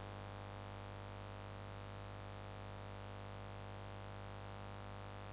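Faint, steady electrical mains hum with light hiss: the microphone's background noise between spoken lines.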